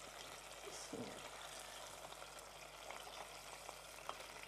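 Breaded chicken strips deep-frying in hot oil in a stainless pot: a faint, steady sizzle with small crackles and the odd light click.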